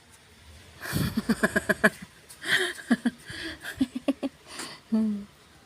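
A person's voice making short bursts of non-speech sound. A quick run of repeated pulses comes about a second in, followed by several shorter sounds and a brief held tone near the end.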